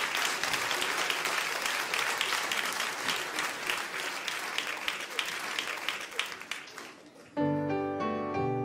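Audience applauding, the clapping dying away after about seven seconds. A piano then starts playing chords.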